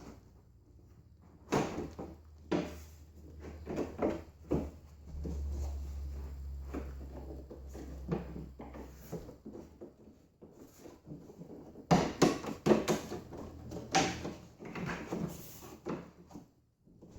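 Irregular knocks, clacks and rustles of plastic keyboard casing and parts being handled and set down during disassembly, with a cluster of sharp clatters about twelve seconds in and a low steady hum in the middle.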